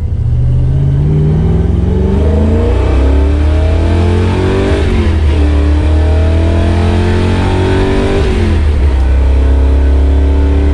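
1964 Chevy Nova SS engine under hard acceleration, heard from inside the cabin. The revs climb, drop at a gear change about five seconds in, then climb again before easing off to a steady cruise near the end.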